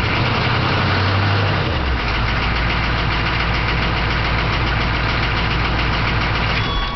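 6.2-litre IDI V8 diesel idling with a steady tapping from the valvetrain, which the owner takes for a collapsed lifter, having found excess valve lash on the number 1 exhaust valve. Just before the end the engine stops and a steady electronic beeping tone starts.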